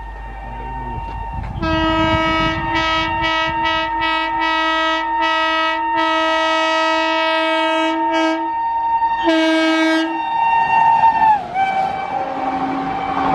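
WAP-7 electric locomotive's horn on an express train running through at speed. A faint steady tone leads into loud blasts from about a second and a half in: a run of quick, stuttering honks, a long held blast, then a shorter one. Near the end the pitch drops as the locomotive passes, and the rumble of the train rises.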